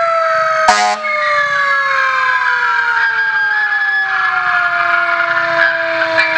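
Fire engine siren winding down, its wail falling slowly and steadily in pitch. A short, sharp blast cuts in under a second in.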